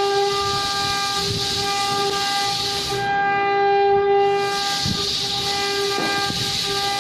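Sawmill saw running with a steady high whine over a hiss. The hiss drops away for about a second midway while the whine swells, then returns.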